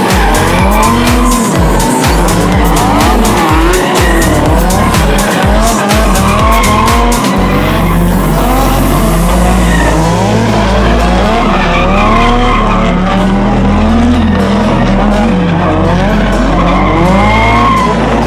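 Drift car engines revving up and down repeatedly, with tyre squeal, mixed with electronic background music with a steady beat. About seven seconds in, the music's drums and treble drop away, leaving a deep sustained bass under the engines.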